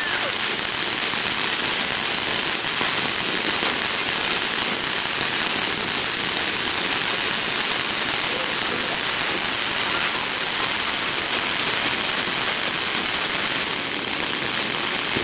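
Several ground fountain fireworks spraying sparks at once, a steady, loud rushing hiss that holds level throughout.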